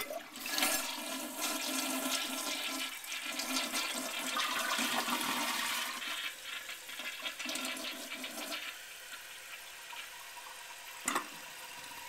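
1999 American Standard Cadet two-piece toilet flushing: water rushes out of the tank for about eight seconds, easing and surging again along the way, a flush that sounds like it double flushed. It then settles to the quieter steady hiss of the fill valve refilling the tank, with a single click about eleven seconds in.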